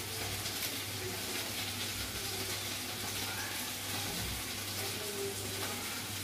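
Steady hiss with a low, constant hum and no distinct event.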